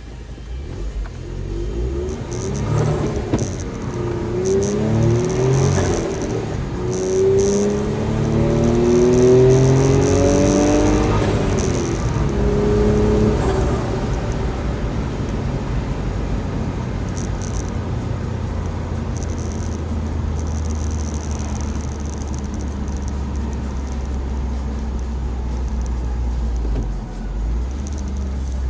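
Suzuki Carry's 660 cc three-cylinder K6A turbo engine under way: revs rise repeatedly through several gear changes, then settle about halfway in to a steady low drone while cruising.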